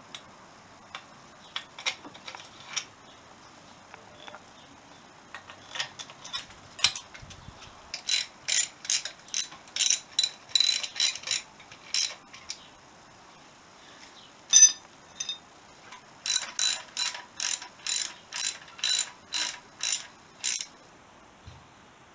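A ratchet clicking in quick strokes, about two to three clicks a second, in two runs with a single louder click between them.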